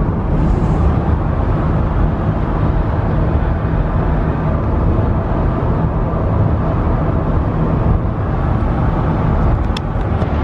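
Steady road and engine noise inside the passenger cabin of a moving car, deepest at the low end, with a brief click near the end.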